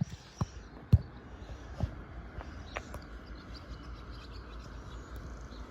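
Outdoor background with a steady low rumble and faint chirps, broken by about six short sharp clicks or knocks in the first three seconds, the loudest about a second in.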